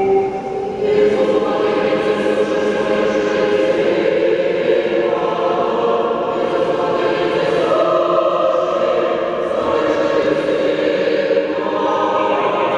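Many voices singing Orthodox liturgical chant unaccompanied, in a large reverberant church. The singing dips briefly just before the first second, then carries on without a break.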